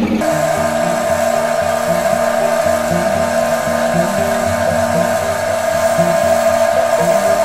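Wood lathe running at a steady speed with a constant whine as oil finish is rubbed onto the spinning piece, under background music with a stepping melody.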